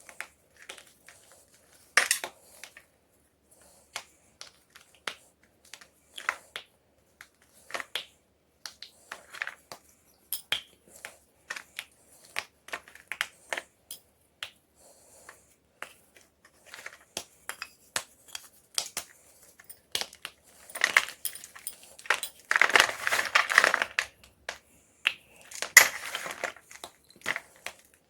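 Homemade gym chalk being crushed: irregular sharp crunches and snaps, with a longer spell of dense crumbling about three-quarters through and a loud crunch soon after.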